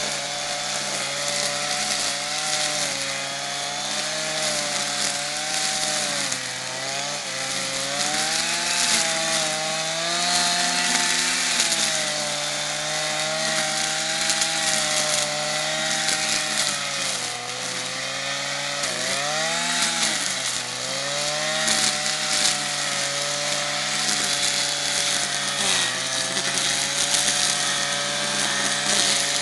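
Stihl petrol brushcutter running at cutting speed through thick weeds and undergrowth, with a steady hiss over the engine. The engine note wavers as the head bites into the growth, sagging and recovering several times, most deeply about two-thirds of the way through.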